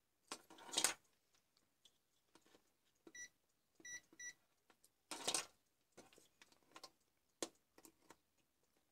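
Digital multimeter giving three short, high beeps about three to four seconds in as its button and dial are worked. Around them, louder scraping and rustling of the test probes and circuit board being handled, with a few small clicks.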